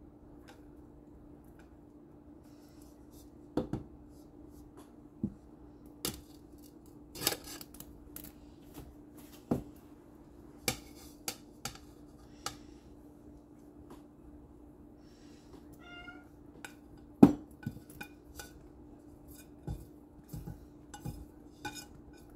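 Pieces of biscuit dough pushed by hand off a ceramic plate into a slow cooker: irregular light clicks and knocks of fingers and dough against the plate and pot, the sharpest about 17 seconds in, over a steady low hum.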